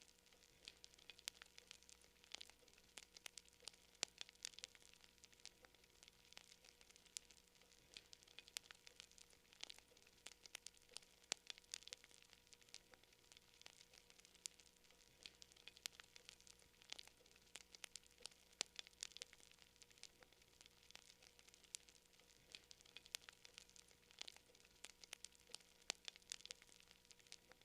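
Campfire crackling quietly: a steady stream of small, sharp pops and snaps from burning wood, with a faint steady hum underneath.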